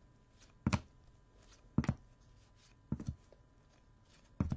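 Thick trading cards handled one at a time: four short, sharp taps about a second apart as each card is set down or knocked against the stack.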